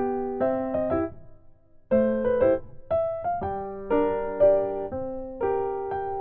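Background piano music: a light melody of struck notes, pausing briefly about a second in before resuming.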